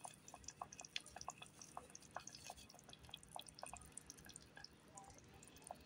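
Faint, irregular little pops and blips, several a second, of a pot of tomato sauce and potatoes simmering.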